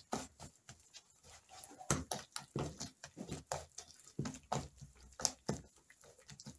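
Wet squelching and slapping of eggs, sugar, fats and pulque being mixed together for bread dough, in irregular strokes several a second.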